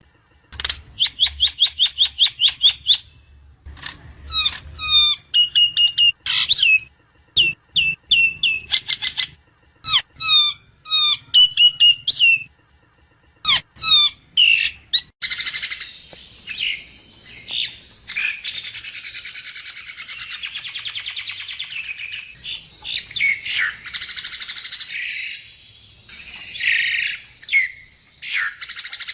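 Javan myna calling: quick series of sharp whistled notes and chirps, repeated in bursts, then about halfway through a continuous harsh, raspy chatter.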